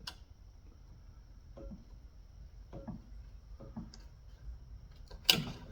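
Faint scraping and light clicks of tools working a fuel-line clamp on a snowblower carburetor, then one sharp click about five seconds in as the clamp comes free.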